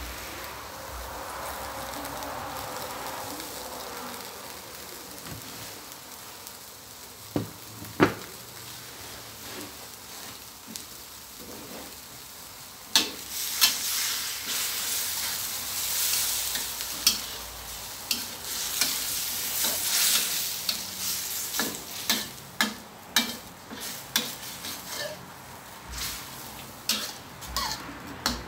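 Pork and onion flower stalks sizzling in a stainless steel wok, with a metal spatula knocking and scraping against the pan as they are stir-fried. A couple of sharp knocks come about eight seconds in, and from about halfway on the strokes come quick and many over a louder sizzle.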